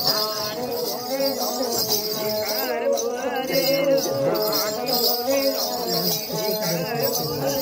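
Live Rajasthani folk music in the Marwari style: a voice singing a wavering melody over a steady sustained accompaniment, with bells and rattles jingling.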